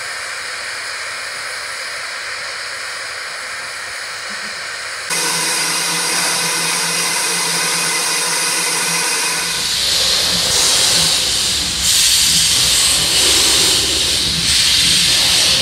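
Steam locomotive 65894, an LNER J27 0-6-0, hissing steam at a standstill. The hiss is steady at first and steps up in level about five seconds in. From about ten seconds on it comes in repeated louder surges.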